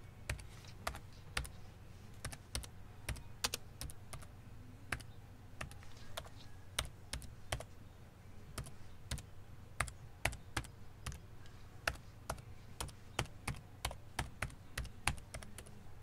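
Typing on a laptop keyboard: sharp, uneven key clicks, a few a second, over a faint steady low hum.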